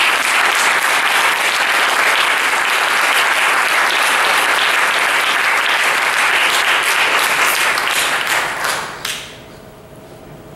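An audience applauding steadily. The clapping dies away about nine seconds in.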